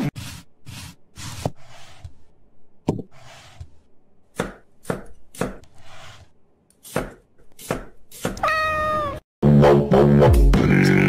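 Knife chopping an onion on a wooden cutting board: a run of sharp chops mixed with short slicing strokes. At about eight and a half seconds a cat meows once with a falling pitch, and loud music starts a second later.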